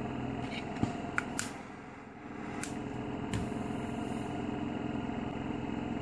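Respironics EverGo portable oxygen concentrator's compressor running with a steady hum, dipping briefly about two seconds in. A few sharp clicks in the first second and a half.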